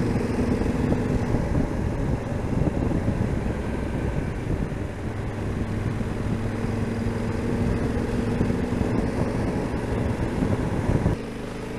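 Yamaha XT1200Z Super Ténéré's parallel-twin engine humming steadily at cruising speed, mixed with wind and road noise on the bike-mounted camera. The sound drops suddenly to a quieter level near the end.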